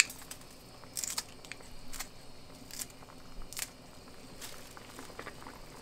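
Kitchen scissors snipping a fresh cheongyang chili pepper into a pot of stew: about six sharp snips, roughly one a second.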